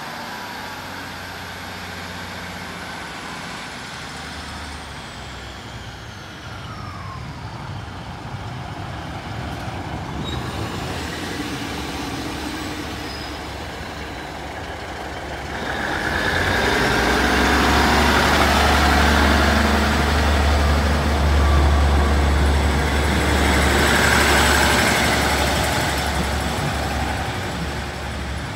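Network Rail Class 950 two-car diesel multiple unit running along the platform: wheel-and-rail noise as it comes in, then its underfloor diesel engines with a deep steady hum, loudest as the unit passes a little over halfway through, easing off near the end as it moves away.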